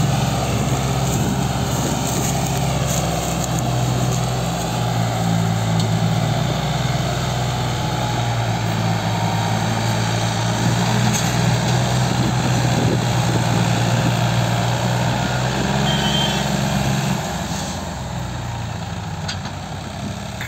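New Holland and John Deere tractors' diesel engines working hard under heavy load, one towing a loaded sugarcane trailer while the other pulls it on a rope; the steady, loud engine note drops back a few seconds before the end as the pull eases off.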